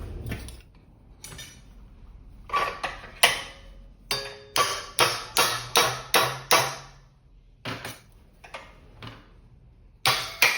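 Hammer blows on a small 16-gauge sheet-metal strut, bending its ends over: sharp metallic strikes in quick runs of about three a second, with short pauses between the runs.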